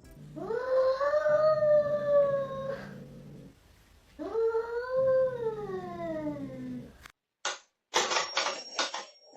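A pet howls twice in reaction to a fast sniffing noise it hates. Each call is long, rising and then falling in pitch. A few sharp clicks follow near the end.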